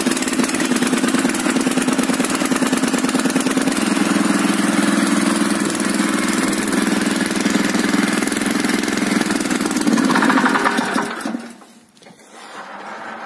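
Hecht 7100 tiller's 5.5 hp single-cylinder four-stroke engine running steadily just after a cold start: in about 1–2 °C it took a second pull to catch. Near the end it dies away and falls quiet.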